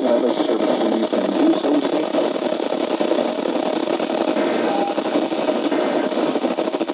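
Steady hiss of radio static from a weather radio receiver's speaker, with no voice coming through.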